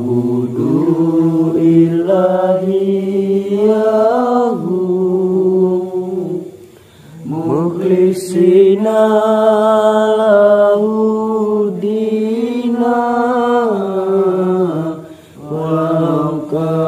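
A man's voice chanting a devotional prayer in long held notes that slide from pitch to pitch. It breaks off briefly about seven seconds in and again near the end.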